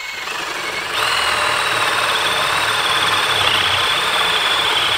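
Power drill spinning a wood spade bit as it cuts a countersink into a wooden board through painter's tape, the motor whine jumping higher and louder about a second in as the drill speeds up, with the rough chatter of the bit chewing wood.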